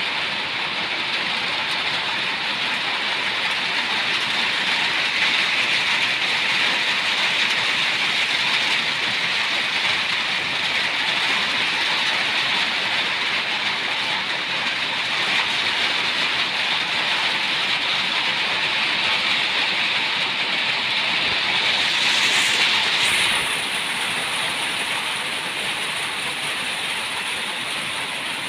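Steady rain falling, an even hiss with no breaks. A faint thin high tone joins in the last few seconds.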